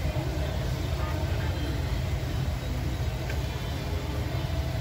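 Turbocharged Toyota Supra engine idling steadily, a continuous low rumble.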